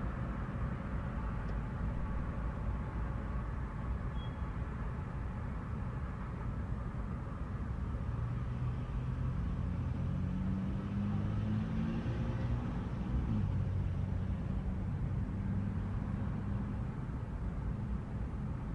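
Steady low rumble of distant road traffic at night, with one vehicle's engine note swelling from about eight seconds in, loudest around thirteen seconds, then fading as it passes.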